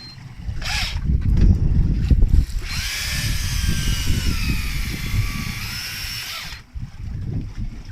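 Electric deep-drop fishing reel motor whining as it winds in line. It gives a short burst about a second in, then a longer spell of about four seconds whose pitch sags and rises again. A low rumble of wind on the microphone runs underneath.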